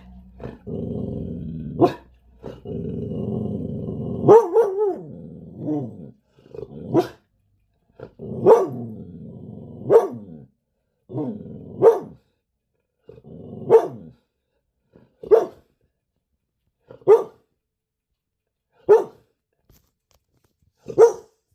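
A dog barking insistently, opening with a sustained low growl for the first few seconds, then single barks about every one and a half to two seconds, each trailing off into a growl.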